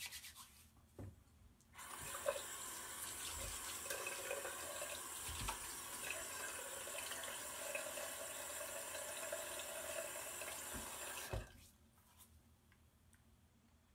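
Bathroom sink tap running: water comes on about two seconds in, runs steadily for roughly nine seconds, and is shut off abruptly, with a small knock as it stops.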